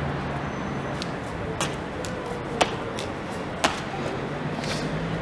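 Footsteps on paving stones: a row of sharp taps and scuffs about every half second, over steady street hum.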